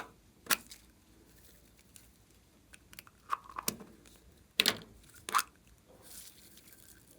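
Glossy slime with mixed-in items being squeezed and pressed by hand, giving a handful of sharp crackling pops, the loudest about two-thirds of the way through.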